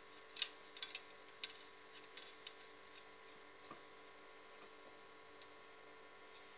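A few faint, sharp metal clicks, most in the first three seconds and a couple more later, as the safety valve is screwed back into the boiler of a 1970 Mamod model steam traction engine. Otherwise near silence with a faint steady hum.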